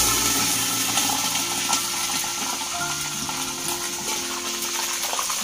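Whole fish deep-frying in oil in a wok: a steady sizzling hiss with faint scattered crackles, under background music.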